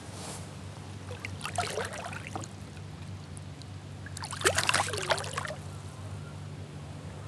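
Water splashing and gurgling as a smallmouth bass is released by hand over the side of a kayak: two short bouts of splashing about three seconds apart, the second louder. A steady low hum runs underneath.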